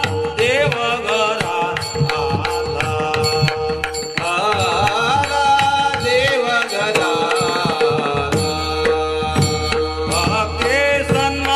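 Marathi Varkari bhajan: devotional singing over a steady held drone, with hand-drum strokes keeping the beat.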